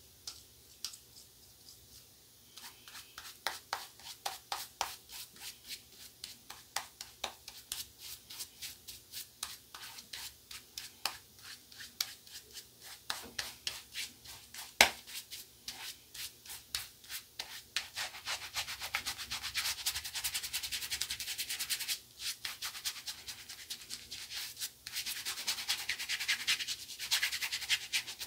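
Shaving-soap lather being rubbed by hand over two days' stubble: wet, crackly strokes about three a second, turning into a denser continuous rubbing about two-thirds of the way through.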